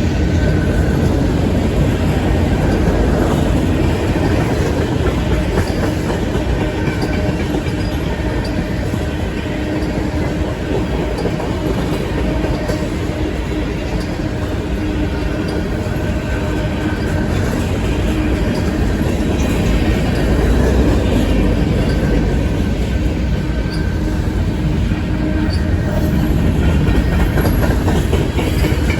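Freight cars of a long CSX manifest train rolling past, a steady rumble with the wheels clicking over the rail joints.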